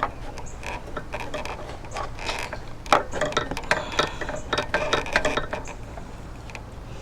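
Irregular clicks, taps and small rattles of hand work on a lawnmower's fuel system while a new rubber fuel line is pushed onto its fitting. The clicks come thickest in the middle, then thin out near the end.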